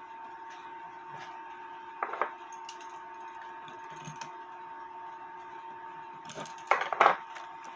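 Small metal clicks and knocks of a clock wheel being fitted and tightened into the Jacobs chuck of a watchmaker's lathe: a short clatter about two seconds in and a louder cluster near the end. A steady faint hum runs underneath.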